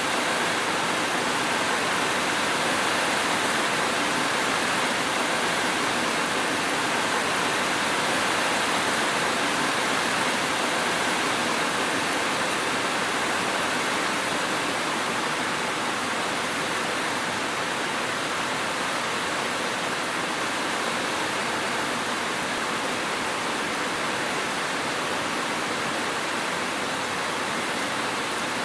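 Steady heavy rain, an even unbroken hiss with no drips or thunder standing out.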